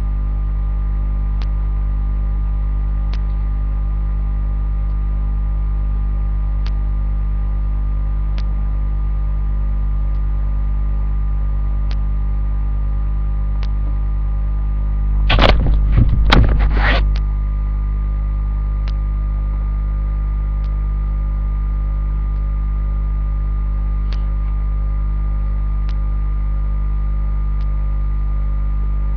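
Steady electrical hum with several constant tones and faint ticks about every two seconds. About halfway through, a brief cluster of knocks and clatter lasts about two seconds.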